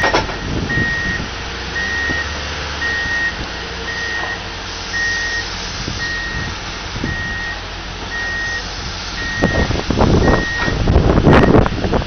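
Hyundai wheel loader's reversing alarm beeping about once a second, a single high steady tone, over the running diesel engine as the machine backs away. The beeps stop near the end, where louder, uneven rumbling noise takes over.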